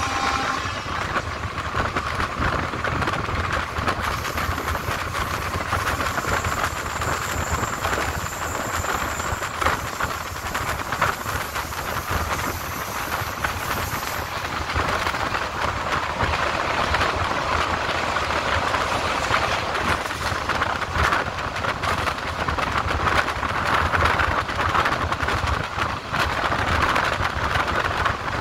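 Regional passenger train running along the line, heard on board: a steady rumble and rattle of wheels on track. A faint high-pitched whine comes in for several seconds in the first half.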